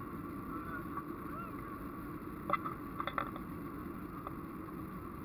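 Jet airliner's engines and airflow heard from inside the passenger cabin during the climb after takeoff: a steady rushing noise, with a few short clicks about two and a half to three seconds in.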